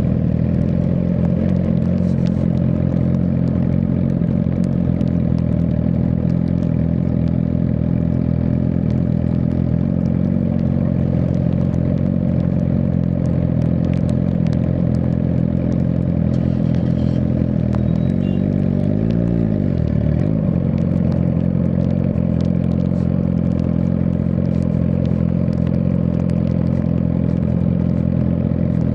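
Suzuki GSX-R1000R's inline-four engine running at steady revs, with a brief dip and rise in pitch about two-thirds of the way through.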